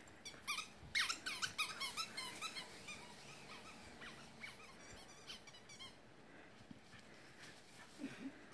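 Small dog whining and yipping in a rapid run of short, high-pitched squeaks, thickest from about half a second to three seconds in and dying away by about six seconds.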